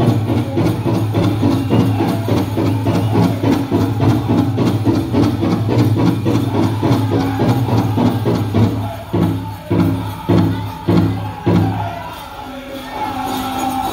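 Powwow drum group singing a chicken-dance song over a big drum beaten in a fast, steady pulse. Near the end the beat breaks into a few separate hard strikes and the drumming stops about twelve seconds in.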